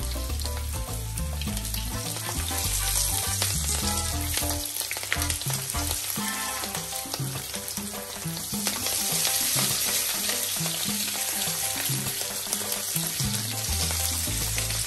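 Bacon strips sizzling in their rendered fat in a grill pan, frying steadily while they are turned over with a fork.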